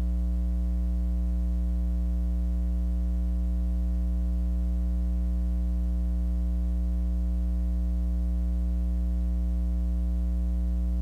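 Steady electrical mains hum: a low, unchanging buzz with a ladder of higher overtones and nothing else over it. It cuts off abruptly at the very end.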